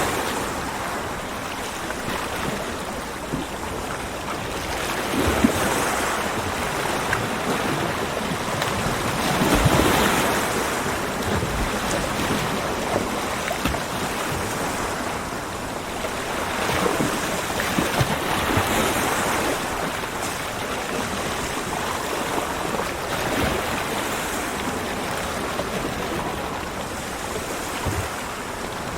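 Ocean waves breaking and washing on a beach, a steady surf that swells as each wave comes in, the biggest about a third of the way through.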